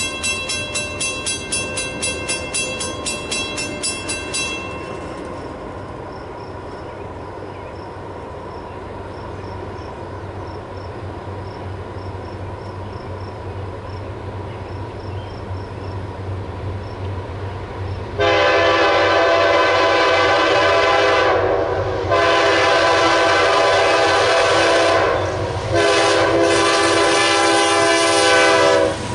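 A rhythmic ringing stops about four seconds in, leaving the low rumble of an approaching freight train that slowly grows louder. About eighteen seconds in, the lead locomotive of a CSX double-stack train sounds its horn in loud long blasts with short gaps between them, and the horn stops just as the locomotives pass.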